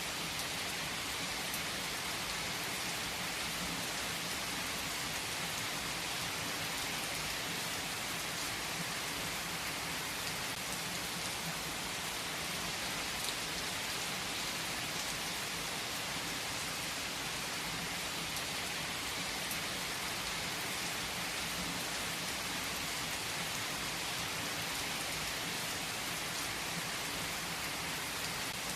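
Steady heavy rain falling on a surface: an even, unbroken hiss with no let-up or distinct thunderclap.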